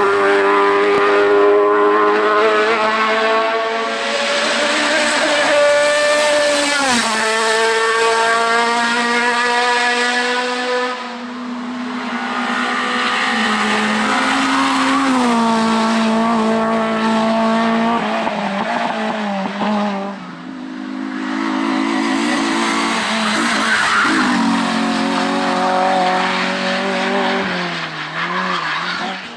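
Racing car engines at high revs on a hill climb, the pitch climbing through each gear and dropping sharply at the shifts, several times over.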